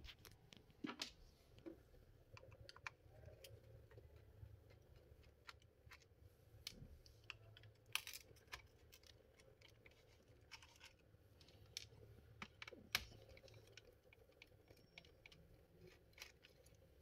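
Faint, irregular small clicks and ticks of a screwdriver working the screws out of a Dell Inspiron 1545 laptop's underside, with the odd louder click of a tool or loose screw.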